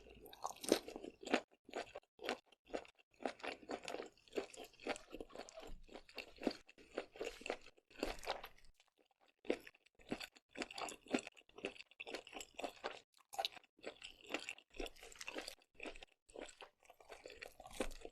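Close-up chewing of seafood, squid, shrimp and octopus, with continuous wet, crunchy mouth noises and irregular bites, broken by a couple of brief pauses.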